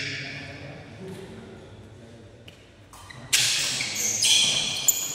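Badminton rally: rackets hit the shuttlecock with short sharp clicks, and court shoes squeak loudly on the floor from a little past three seconds in.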